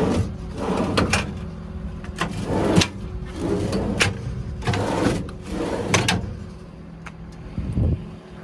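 Metal clanks, knocks and rattles from a service-truck body's toolbox and compartment doors being handled, about a dozen separate knocks, over a steady low hum.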